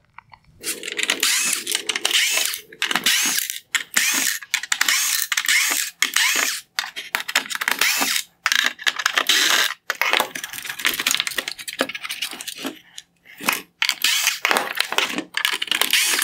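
Cordless electric screwdriver with a T20 Torx bit backing screws out of a plastic headlight housing. It runs in a series of short bursts with brief pauses between them, one after another.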